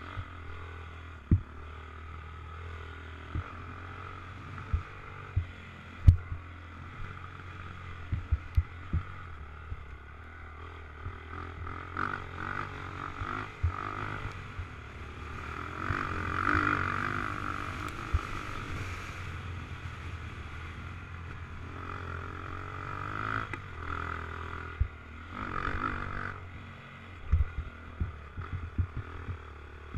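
Dirt bike engine revving up and down as it is ridden around a motocross track, heard from a helmet-mounted camera, with scattered sharp knocks.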